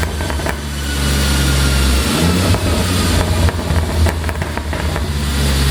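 Audi A7 50 TFSI quattro engine and exhaust running and being revved, with a scatter of sharp pops and crackles from the exhaust on the overrun, the sound that a pop-and-crackle ECU tune produces.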